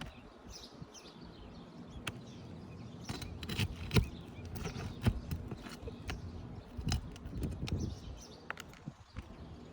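Irregular clicks, knocks and scrapes of hand work on a 3-tab asphalt roof shingle as it is worked loose for repair, busiest in the middle stretch.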